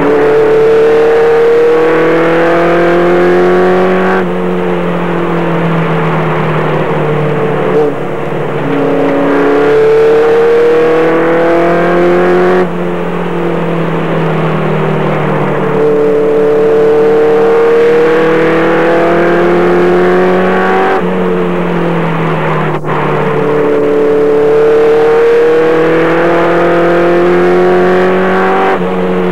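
Race pickup's engine heard from inside the cab at racing speed. Its pitch climbs slowly along each straight and drops as the driver lifts for the turns, once every four to eight seconds, lap after lap.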